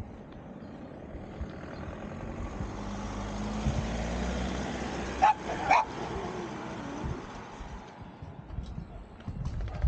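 A vehicle passing by, its sound swelling to a peak around the middle and then fading. Near the peak a dog barks twice in quick succession.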